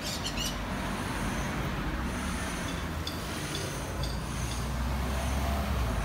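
Street traffic ambience with a passing vehicle's low rumble building toward the end. A brief cluster of high chirps sounds at the start, and a few faint high ticks come around the middle.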